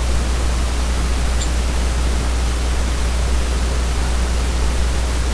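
Steady, even hiss across the whole range with a strong low hum underneath, unchanging throughout.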